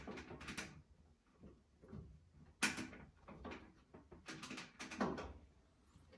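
Faint clicks, knocks and scrapes of parts and tools being handled inside a clothes dryer cabinet, with a sharper knock a little under halfway and a quick run of clicks about two-thirds of the way in.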